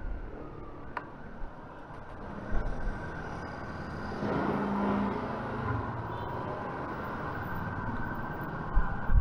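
Honda motor scooter's engine running as it rides slowly, with street traffic noise around it; it gets a little louder for about a second around four seconds in.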